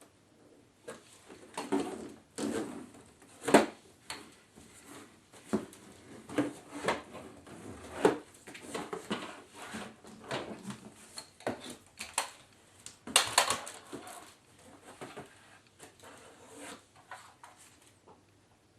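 Irregular knocks, clicks and short rustles of plastic parts and packaging being handled; the vacuum cleaner's motor is not running.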